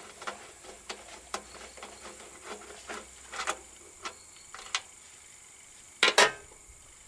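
Light metallic clicks and clinks of a socket wrench and small parts being handled on top of a riding-mower engine, about two a second at first, then sparser. A loud double clack about six seconds in as the wrench is set down on the engine's shroud.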